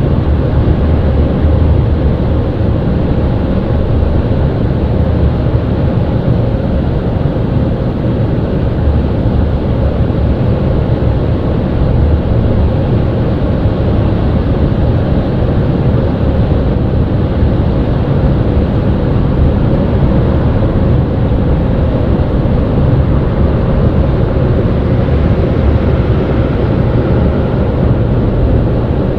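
Kleindienst Euro Combi car wash running, heard from inside the car's cabin: rotating wash brushes and water spray working over the body. A steady, loud, deep noise without pause.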